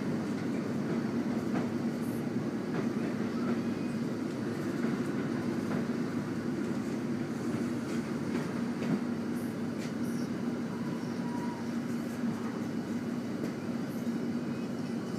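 Steady running noise inside a moving diesel passenger train: a constant low engine drone over the rumble of the carriage, with a few faint clicks from the wheels on the rails.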